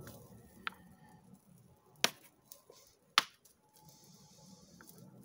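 A hammerstone striking a flint core in flint knapping: two sharp clacks about two and three seconds in, with a few fainter taps around them, as he tries to knock flakes off.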